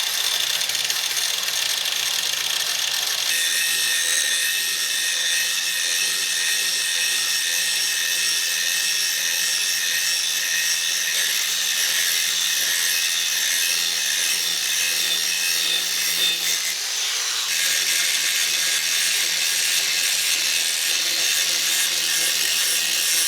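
Power tool with a grinding disc running continuously against a steel axe head, a steady abrasive grinding with a motor hum underneath, to grind pits out of the metal.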